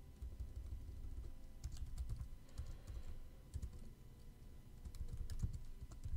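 Typing on a computer keyboard: scattered keystroke clicks in short irregular runs with brief pauses between them.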